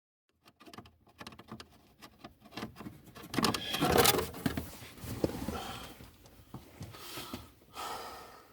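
Rustling and scattered light clicks and clatters of objects being handled, loudest around the middle.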